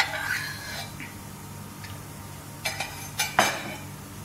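A metal spoon clinking against glass dishes. There is one clink at the start, then a quick cluster of clinks about three seconds in, the last one the loudest and ringing briefly. A faint, steady low hum sits underneath.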